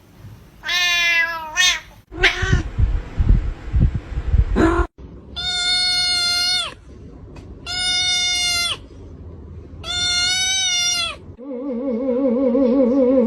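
Domestic cat meowing: one falling meow at the start, then three long, level, drawn-out yowls of about a second each, evenly spaced. A rough low rumbling noise falls between the first meow and the yowls, and a wavering tune starts near the end.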